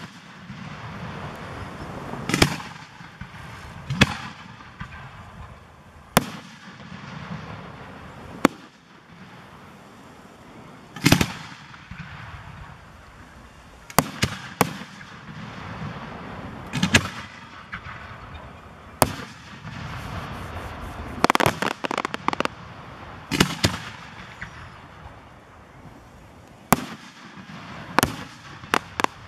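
Aerial fireworks shells bursting, a sharp bang every two seconds or so, with a quick run of several bangs about two-thirds of the way through and another cluster near the end.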